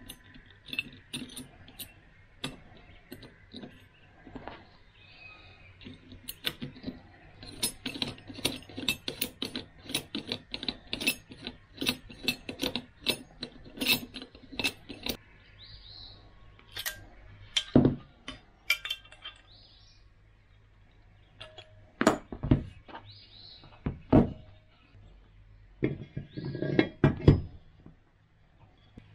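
Small metal parts clinking and tapping: nuts, washers and a clamp rod being fitted around a pair of sharpening stones, with quick runs of clicks in the middle. A few heavier knocks follow near the end as the clamped stones are set into the metal holder box.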